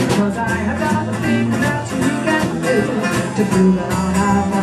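A live band playing amplified music: guitars over a drum kit's beat.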